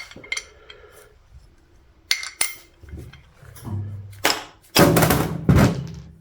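Metal engine parts clinking and knocking as they are handled on a workbench, one clink ringing briefly about two seconds in, followed by louder rubbing and rustling noises in the second half.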